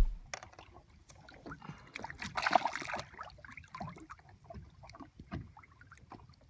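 Quiet, intermittent water sounds: small splashes and lapping, with a louder splash about two and a half seconds in.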